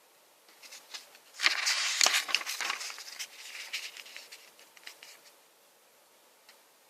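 Packaging being handled, rustling and crackling with many small ticks. It swells a second or so in, then dies away, with one last faint tick near the end.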